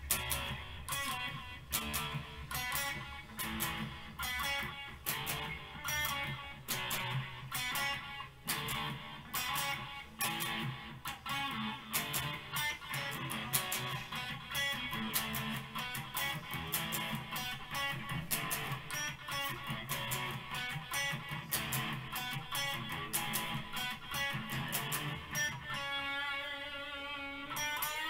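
Electric guitar played solo in a fast run of picked notes. Near the end it settles on a long held note whose pitch bends and wavers.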